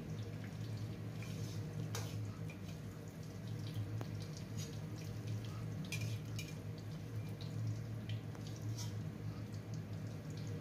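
A little oil frying in a steel wok, with scattered light crackles, pops and clicks as the last pieces of fried taro are scooped out with a slotted metal ladle. A steady low hum runs underneath.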